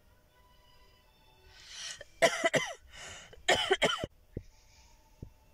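A woman with a heavy cold coughing, two harsh bouts about two and three and a half seconds in, each made of a couple of sharp bursts after a quick in-breath.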